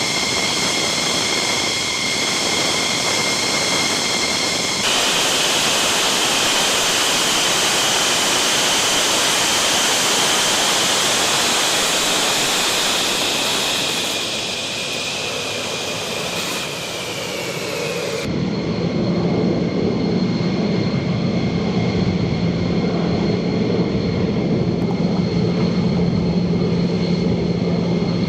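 F-15 fighter jet engines running loud: a steady high-pitched whine over a rushing roar. The sound changes abruptly twice, as if cut between recordings; after about two-thirds of the way the whine falls in pitch, then gives way to a lower, steady engine drone.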